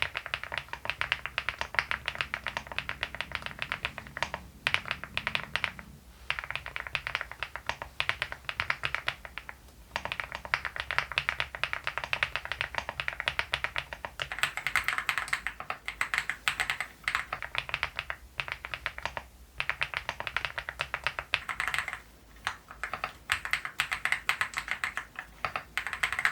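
Typing on a Leobog Hi75 full-aluminium mechanical keyboard: a fast, steady stream of key clacks with brief pauses, a sound like rolling pebbles. For about the first ten seconds it has Silyworks Hyacinth V2U switches under MOA keycaps; after a short break the typing goes on to compare MOA and XDA keycaps.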